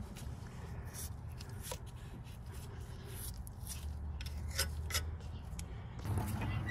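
Faint rubbing and scraping of a small applicator brush spreading grease on a wheel hub flange, with a few light ticks of the applicator against the metal, over a low steady hum.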